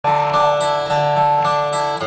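Live bluegrass band playing on acoustic string instruments, with guitar and upright bass among them, heard from the audience through the stage PA. Sustained melody notes change every fraction of a second over a steady bass.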